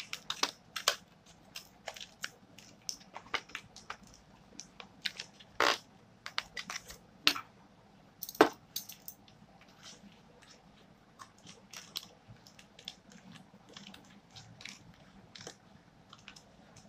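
Paperboard food carton being torn open and handled: a run of short crackles, rips and taps, denser in the first half with the sharpest about eight and a half seconds in, then fainter scattered crinkling.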